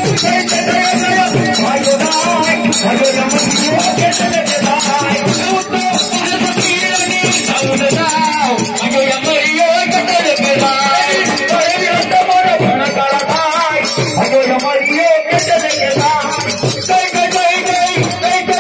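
Loud music with fast, dense rattling percussion under a wavering melody line.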